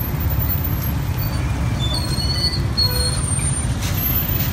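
Steady low rumble of a motorbike ride through slow street traffic: the motorbike's engine and road noise, with a few short, faint high squeaks.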